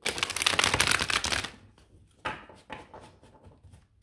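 A deck of gold-edged tarot cards riffle-shuffled on a table: a fast flutter of card edges for about a second and a half, then a few lighter taps and clicks as the deck is gathered.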